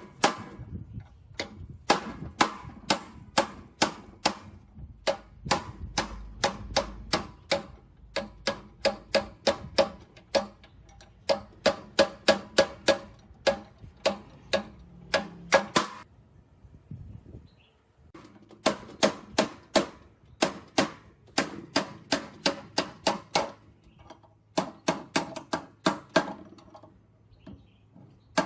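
Repeated sharp metal-on-metal strikes, about three or four a second, in long runs broken by a few short pauses, each strike with a brief ring.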